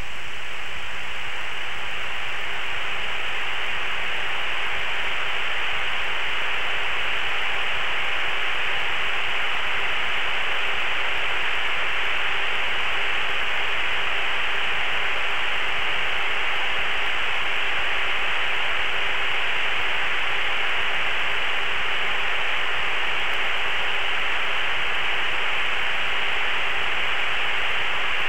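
Steady, even hiss of radio static on an aircraft radio channel between transmissions, with a faint steady hum underneath.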